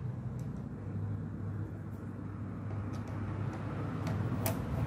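A few light metallic clicks and taps as a screwdriver is worked on the servo motor's mounting bolt, the sharpest one near the end, over a steady low hum.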